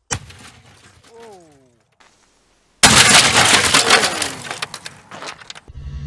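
A large firecracker explodes inside an old refrigerator about three seconds in: a sudden very loud bang and crash that dies away over about three seconds, with a few sharp clicks near the end.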